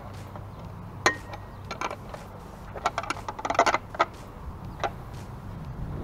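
Steel wrench clinking against a headlight-bracket bolt and bracket as it is worked by hand: a sharp clink about a second in that rings briefly, a quick run of clinks and rattles around the middle, then a few lighter taps.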